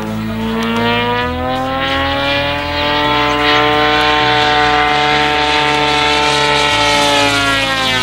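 DLE 130cc twin-cylinder two-stroke gas engine of a large-scale Extra 300 RC aerobatic plane running in flight. Its pitch rises over the first few seconds, then falls slowly through the rest.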